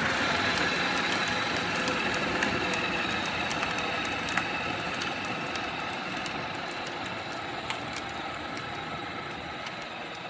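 Kids' electric ATV driving off: the electric motor whines steadily over a rumble of wheels on the ground, with scattered small clicks, fading as it gets farther away.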